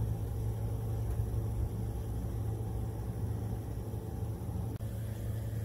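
A steady low mechanical hum with a faint rumble beneath it, unchanging and without any distinct knocks or clicks.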